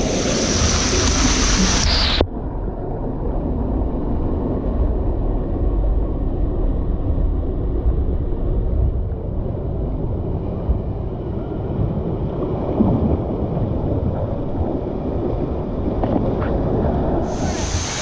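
Water rushing through a plastic tube water slide, a bright hiss that cuts off suddenly about two seconds in. Then a low, muffled rumble of sliding water, with the bright rush of water coming back near the end.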